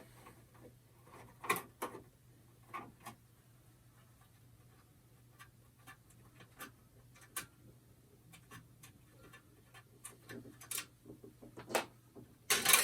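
Scattered light clicks and taps of a screwdriver and small screw on a metal PC expansion-unit chassis as an expansion slot cover is unscrewed, with a faint steady hum underneath. The clicks come closer together near the end.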